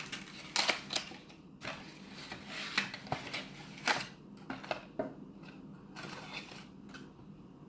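Toy packaging being opened by hand: irregular crinkles and sharp clicks of plastic and cardboard, louder in the first four seconds and fainter after.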